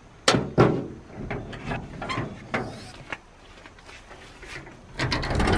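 Knocks and clatter from a camper trailer's metal body: items handled on its shelf and a compartment door being opened. Two sharp knocks come in the first second, lighter taps follow, and a quick run of rattling clicks comes near the end.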